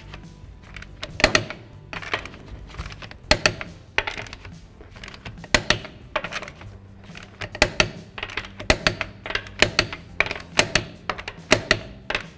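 Click-type torque wrench on a 19 mm socket tightening wheel lug nuts to 88 ft-lb, clicking in short quick runs about once a second.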